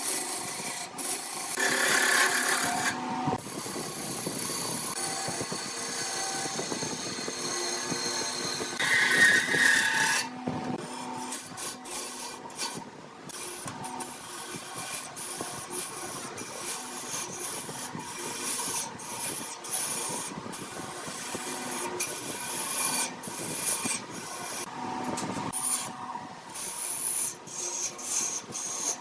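Wood lathe spinning a workpiece while a turning tool cuts and scrapes the wood, a rasping sound broken by many short gaps as the tool touches and lifts.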